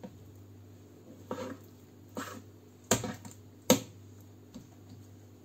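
Kitchen knife knocking against a wooden cutting board as a raw chicken breast is sliced into fillets: about four short taps, the two loudest a little after the middle.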